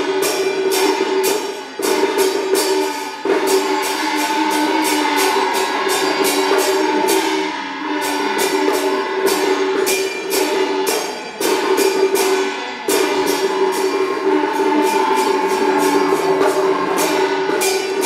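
Taiwanese opera accompaniment ensemble playing a passage without singing. Fast, even percussion strokes come about four a second over a held melody line.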